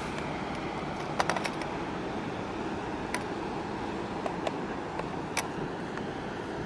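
Steady outdoor background rumble and hiss with scattered sharp clicks, a quick run of four about a second in and single clicks later.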